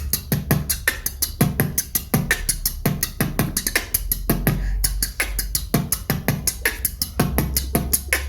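Beatboxer performing a beatbox pattern built from the basic sounds: a steady run of quick, sharp mouth clicks several times a second, with deep kick-like thumps at regular points.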